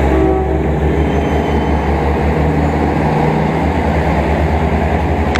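Diesel railcar train moving past at close range, its engine running with a steady low drone over the rumble of the cars on the rails.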